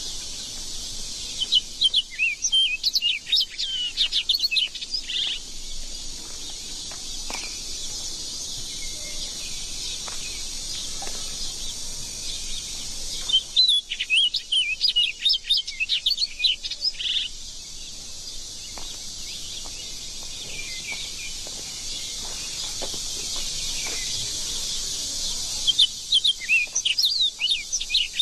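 Small birds chirping in three quick, rapid bouts, near the start, midway and near the end, over a steady high hiss of garden ambience.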